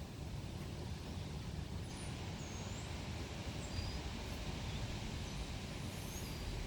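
Steady low rumble of outdoor background noise, with several short high chirps from about two seconds in.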